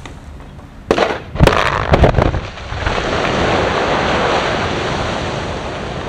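Quarry blast: a rapid string of sharp explosive detonations about a second in, four bangs within roughly a second and a half, followed by a steady rumble as the blasted rock face breaks up and falls.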